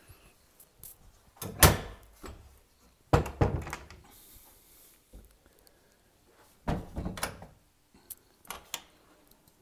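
Wooden cupboard doors of an old pine linen press being handled: a sharp knock about a second and a half in, then several more clusters of knocks and clatters.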